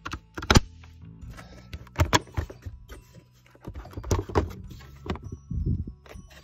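Plastic engine cover of a VW Passat 2.0 TDI being unclipped and handled: a series of sharp plastic clicks and knocks, loudest about half a second in and again around two seconds, with more around four and five and a half seconds. Background music plays underneath.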